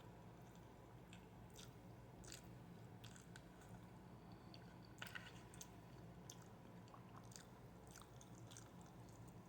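Faint chewing and eating sounds of a person eating fried rice, with scattered small clicks and crunches, a few together about halfway through, over a low steady hum.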